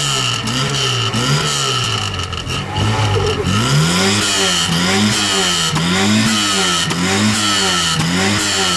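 Car engine free-revved hard through its exhaust, the throttle blipped again and again so the note rises and falls about once every three-quarters of a second.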